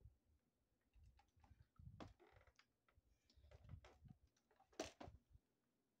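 Near silence with faint, scattered clicks and rustles of handling, the louder ones about two and five seconds in; the vacuum's motor is not running.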